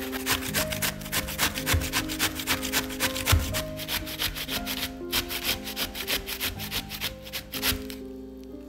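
Raw zucchini grated in quick back-and-forth strokes on a flat metal hand grater over a wooden cutting board, a rasping scrape on each stroke. The grating stops near the end.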